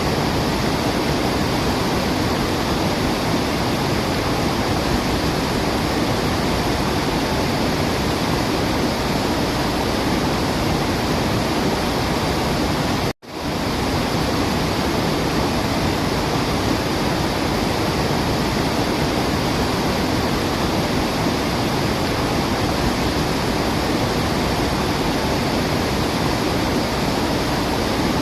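Steady, dense rush of a waterfall, with no birdsong standing out. About halfway through it cuts out to near silence for a fraction of a second, then resumes at once, like a loop join in the recording.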